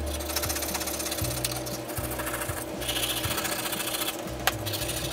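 A small blade scraping rust and grime off the handle of an old breast drill, steel on steel in quick repeated strokes, with a couple of brief pauses.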